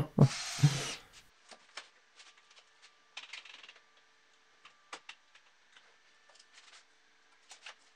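A brief rushing noise in the first second, then scattered light clicks and taps of a cordless drill, bar clamps and plywood strips being handled and set down on a cast iron saw table.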